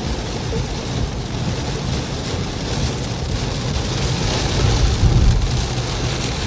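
Heavy rain pouring steadily during a rainstorm, with a low rumble underneath that swells about four to five seconds in.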